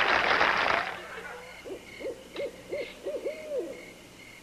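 Crowd applause that cuts off about a second in, followed by an owl hooting about six times in quick succession over steadily chirping crickets.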